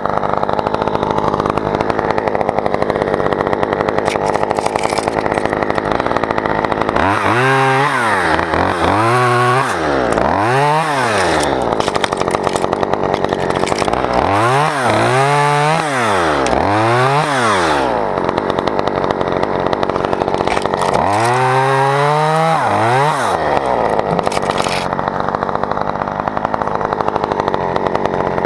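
Chainsaw running steadily, its engine pitch swinging up and down in several revs, in three groups.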